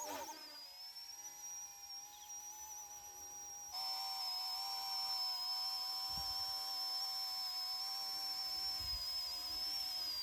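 Small electric RC helicopter's direct-drive motor whining at a steady high pitch, wavering slightly, and getting louder about four seconds in.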